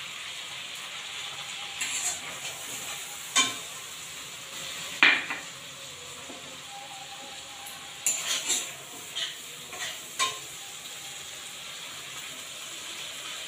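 Freshly added cumin paste sizzling in hot oil in a steel kadai, a steady hiss, while a steel spatula stirs and scrapes against the pan, clinking several times with the loudest clink about five seconds in.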